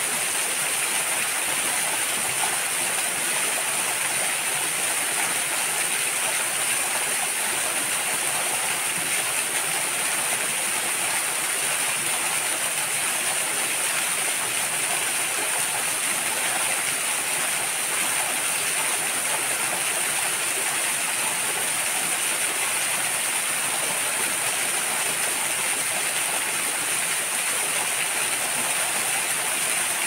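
Waterfall pouring steadily, a constant rush of falling water, with a steady high-pitched hiss over it.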